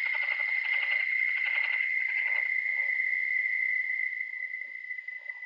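Audio file playback of a steady high-pitched tone with a rapid, rough pulsing noise around it. It sounds loud at first and fades from about four seconds in.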